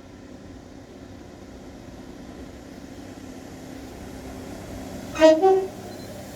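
An approaching train's rumble growing slowly louder, then about five seconds in a short two-note horn blast, a lower note followed by a slightly higher one.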